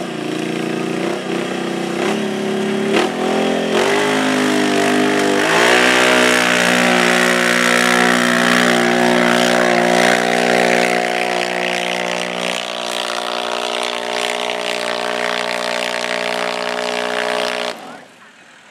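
ATV (four-wheeler) engine under hard load pulling a weight-transfer sled: revving in short rising pulls for about the first five seconds, then climbing to steady high revs held for some twelve seconds. The sound falls away sharply near the end.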